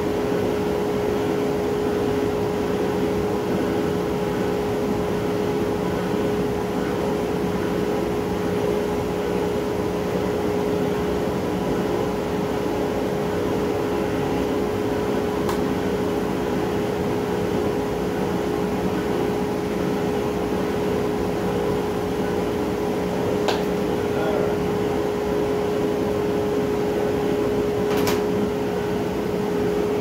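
Router in a router table running steadily at speed with its dust extraction, not yet cutting wood: a constant machine hum with one strong held tone. Two short sharp ticks sound in the second half.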